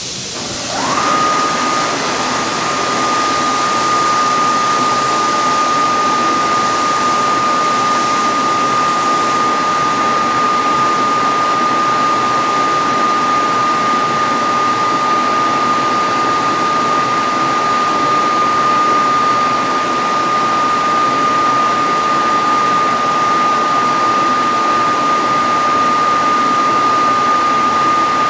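Screw-type air compressor (MH3096-1600S, early type) on a 209-series electric train, running with a vacuum-cleaner-like whine over a steady rush of air. About a second in, the whine rises quickly to a high, steady pitch and holds it.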